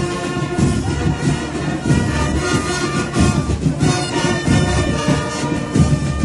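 Band music with a steady beat and horns.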